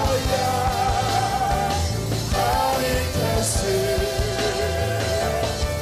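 Live church praise music: a congregation and worship leader singing over a full band with a steady drum beat.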